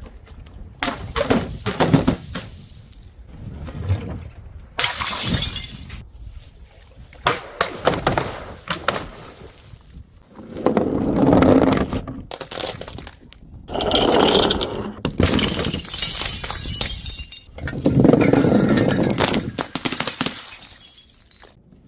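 Glass bottles breaking: a series of sudden shattering crashes, with three longer stretches of crunching, splintering glass about halfway through, a little later, and again near the end.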